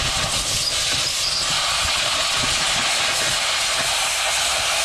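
Compressed-air blow gun blasting a steady hiss into the top of a Weka core drill motor's housing under a rag, blowing out degreaser and dust to dry the motor.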